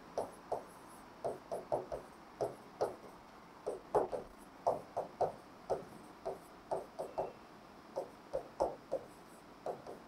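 Marker pen writing on a whiteboard: a run of short stroke sounds, two or three a second, as letters are written one after another.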